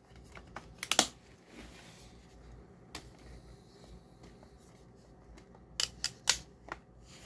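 Sharp plastic clicks and snaps as a DVD is pressed and pried off the centre hub of its plastic case tray. There is a loud click about a second in and a quick run of clicks near the end.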